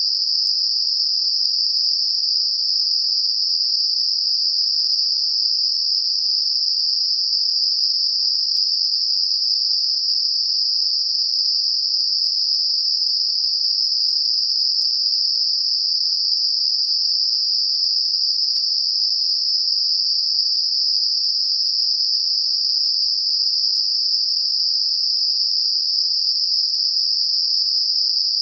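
Computer-generated 5 kHz Gaussian narrow-band noise, a steady, unchanging high-pitched hiss that sits in a narrow band around 5 kHz. It is a sound-therapy masker made for high-frequency tinnitus.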